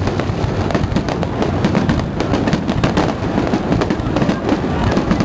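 Aerial firework shells bursting in dense, rapid succession: many overlapping bangs and crackles with no gap between them, over a steady low rumble.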